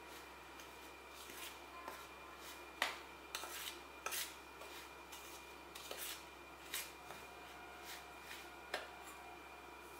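A spoon scraping and clinking against a stainless steel bowl while stirring a dry, crumbly flour-and-oil mixture. The strokes come at irregular intervals, and the sharpest clink is about three seconds in.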